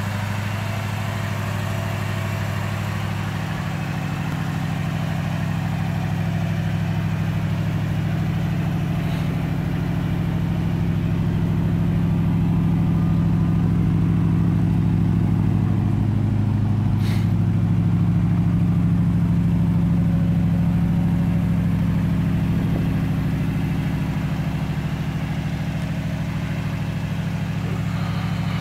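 Chevrolet 350 small-block V8 of a 1941 Chevy street rod idling steadily, a little louder for a while in the middle.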